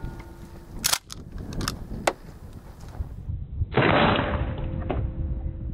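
A few sharp clacks and knocks, then about three and a half seconds in a 12-gauge shotgun shot slowed down, heard as a muffled, drawn-out boom that fades over about half a second.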